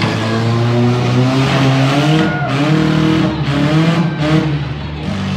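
Several demolition derby cars' engines revving up and down, their pitch rising and falling over one another.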